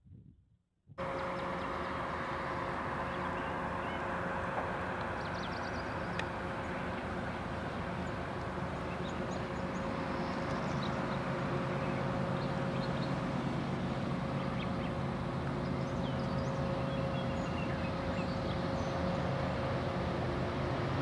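Pair of CSX diesel locomotives running as they pull a double-stack container train, a steady engine drone with a steady high whine, slowly growing louder as it approaches. It starts abruptly about a second in; birds chirp briefly over it.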